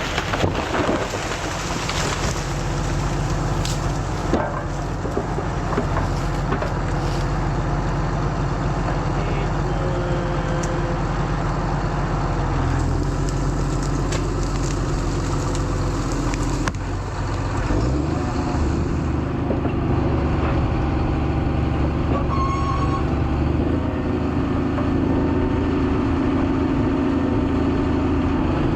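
Engines running as the walnut tree is felled: a chainsaw and the diesel engine of a grapple skidder pushing the tree. There are sharp cracks early on, and partway through the engine sound changes and grows steadier and louder.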